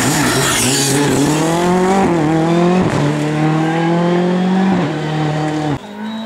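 Ford Fiesta R5 rally car's turbocharged 1.6-litre four-cylinder engine revving hard at speed, its note climbing and dropping back a few times, then breaking off abruptly near the end.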